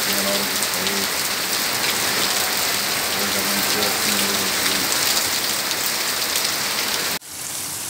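Rain pouring steadily. About seven seconds in it cuts off abruptly, and a quieter recording of rain takes over.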